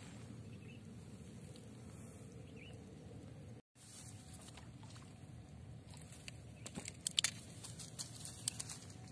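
Steady low rumble of open-air wind and field ambience, which cuts out for a moment about a third of the way in. Over the last few seconds comes a scatter of sharp small clicks and rustles.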